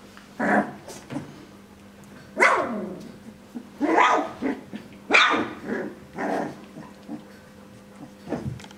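Young puppies barking and yipping as they play together: about half a dozen short, high calls spaced a second or so apart, the loudest about two and a half and five seconds in.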